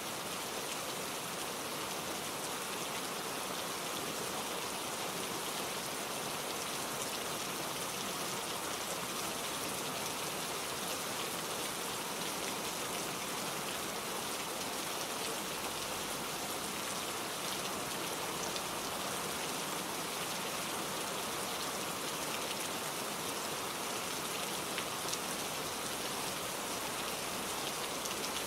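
Steady rain falling, an even hiss with many fine drop ticks on surfaces.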